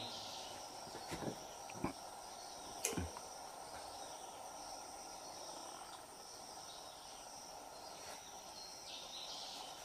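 Faint steady chirring of insects such as crickets, with a few soft clicks and knocks in the first three seconds.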